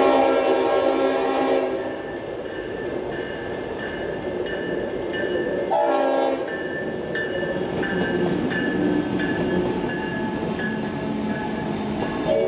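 Leslie RS-5T multi-chime air horn on a Norfolk Southern diesel locomotive sounding a long blast, a short one about six seconds in, and another starting right at the end. In between, the lead diesel locomotives rumble past close by.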